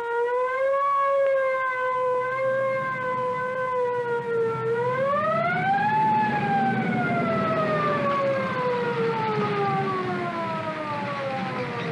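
Police siren wailing: one wavering tone that climbs sharply about four and a half seconds in, peaks, then slowly winds down.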